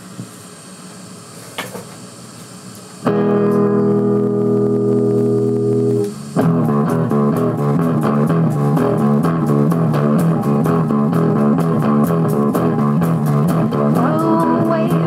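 Electric guitar music: a held chord rings out for about three seconds, then a loud, rhythmic repeating riff starts about six seconds in. A voice comes in near the end.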